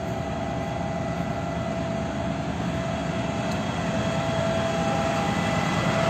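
Water tanker truck's engine running steadily to drive its pump while the roof water cannon sprays, a low rumble with a steady whine over it, growing a little louder near the end.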